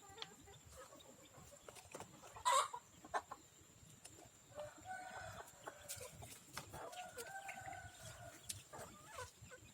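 Free-range chickens clucking, with a brief louder call about two and a half seconds in and a rooster crowing twice in the second half.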